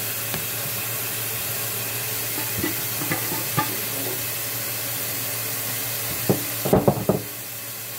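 Kitchen faucet running steadily into a stainless-steel sink, with a few light knocks as a plastic container of flour and water is handled, and a quick cluster of louder knocks and clatter about six to seven seconds in.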